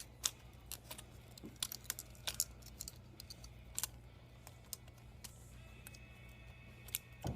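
Irregular small clicks and taps of tablet parts and tools being handled during disassembly, over a steady low hum.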